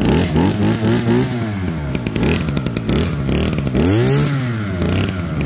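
Two-stroke engine of a Kioritz brush cutter running and being revved with the throttle trigger, its pitch rising and falling several times between idle and high revs.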